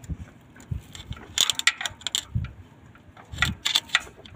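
Metal hand tools clicking and clinking against the injector clamp bolts of a Komatsu PC200-8 excavator engine, in two clusters about a second and a half and three and a half seconds in, with a few dull knocks between.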